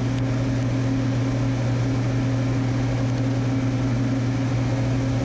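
Steady low mechanical hum of kitchen equipment: one strong low tone and its overtone over a constant rushing noise, unchanging throughout.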